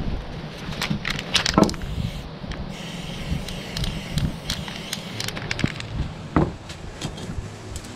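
Irregular clicks, knocks and rustles from aerosol spray-paint cans and a sheet of paper being handled and moved about on a wooden board.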